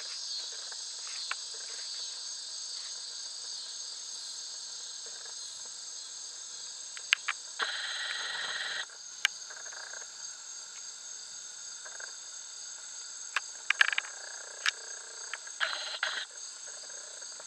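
Steady, high-pitched chorus of insects chirring, with a few sharp clicks scattered through it and a brief rushing noise about eight seconds in and again near the end.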